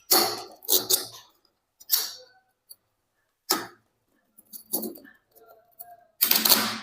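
Hard ABS plastic EAS bottle tag being fitted and locked onto a bottle neck: a series of short plastic clicks and clatters, about six in all, the longest and loudest near the end.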